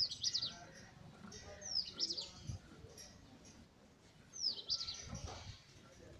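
A bird calling three times, roughly two seconds apart. Each call is a short high falling note followed by a quick run of chirps.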